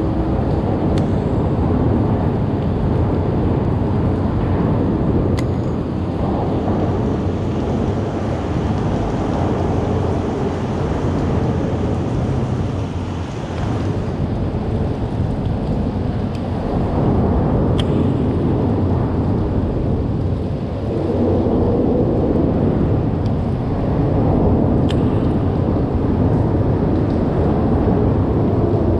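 Rain with gusting wind buffeting the microphone: a loud, steady low rumble that swells and eases every few seconds, with a few faint ticks on top.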